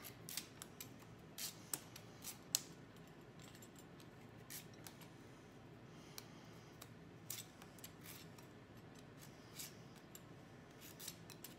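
Small kitchen knife cutting the skin off pieces of pumpkin by hand, making faint, irregular clicks and scrapes. The clicks come quickly in the first few seconds, the sharpest about two and a half seconds in, then every second or so.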